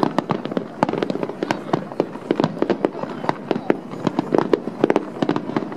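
A fireworks display: aerial shells bursting in a dense, irregular run of sharp bangs and pops, several a second.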